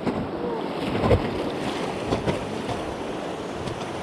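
Rushing river water churning and splashing around a raft, with wind buffeting the microphone. A few sharper splashing hits stand out, the loudest about a second in.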